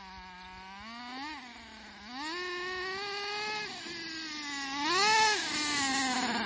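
HPI RC truggy's 4.6 cc nitro engine revving up and down in bursts of throttle as the truggy drives closer, getting louder as it approaches. Sharp revs come about a second in, at two seconds and around five seconds.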